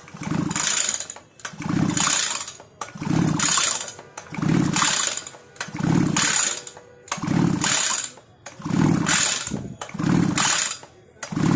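Recoil starter of an Oleo-Mac Sparta 44 two-stroke brush cutter pulled again and again, about nine pulls at roughly one every second and a half, each a whirr of the cord spinning the engine over. The spark plug is out and held in its cap to check for spark, so the engine turns over without firing.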